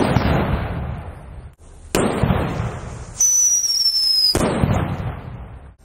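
Firecrackers going off: three loud bangs, each followed by a long echoing tail that dies away over a second or so. Between the second and third bang, a high whistle with a hiss, falling slightly in pitch and cut off suddenly by the third bang.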